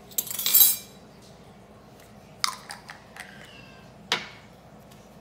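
A ring of metal measuring spoons jingling as it is handled, then two sharp clinks about one and a half seconds apart as the spoons are set down on a stone countertop.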